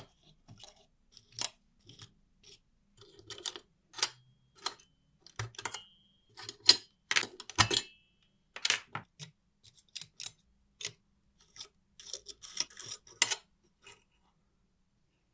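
Small metal parts and hand tools being handled on a bench, giving irregular clicks, clinks and knocks, a couple with a brief metallic ring. It stops about a second and a half before the end.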